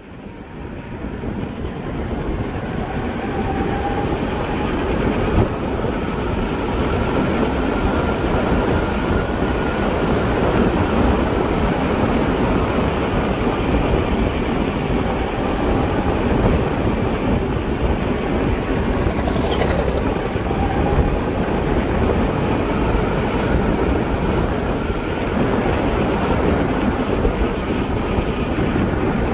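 Steady rumble of wind on the microphone and tyres rolling on rough asphalt from an e-bike under way, building up over the first few seconds. A faint whine slowly drifts in pitch underneath.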